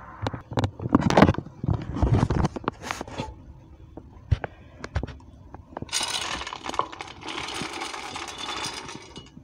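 Washed black-eyed peas pouring from a steel pot into a crock pot: a dense rattling rush lasting about three seconds, starting about six seconds in. Before it come a few sharp knocks and clatters as the pot is handled.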